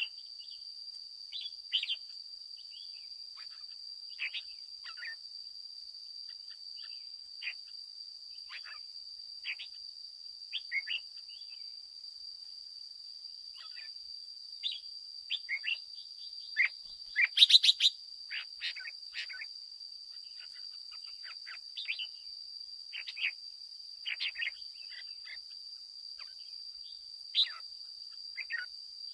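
Red-whiskered bulbuls chirping and singing in short, scattered phrases, with a louder flurry of calls about two-thirds of the way through, over a steady high-pitched drone.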